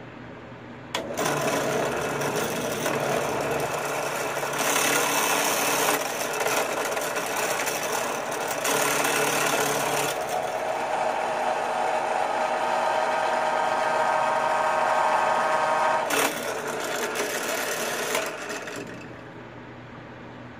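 Drill press with a small twist bit cutting into copper. The loud cutting noise comes in about a second in and stops near the end as the bit is lifted out, with a steady pitched squeal in the middle stretch. A quieter steady motor hum runs underneath.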